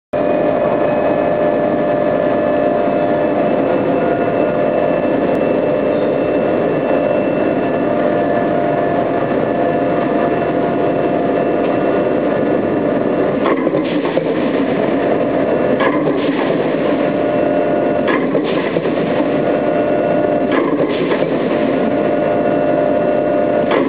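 Smeral LZK 1000-ton mechanical hot forging press running with a steady hum. From about halfway through, sharp clanks come in pairs roughly every two and a half seconds.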